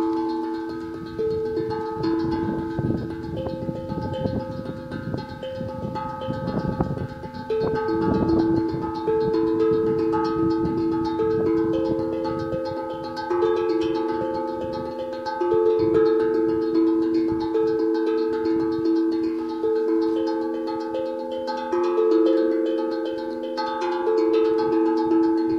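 Steel tongue drum (glucophone) played with two mallets: a slow melody of struck notes that ring on and overlap, each new note joining the last.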